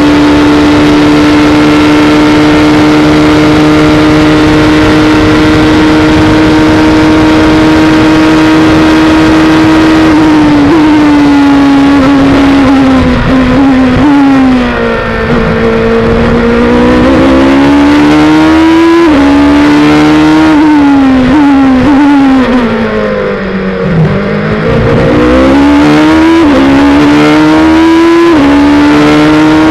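Onboard sound of the HPD ARX-03a LMP1 prototype's twin-turbo V6 racing engine. It holds a steady high note flat out for about ten seconds, then drops in steps through downshifts under braking. It climbs again, falls to its lowest about two-thirds through for a slower corner, and near the end pulls hard again with quick upshifts.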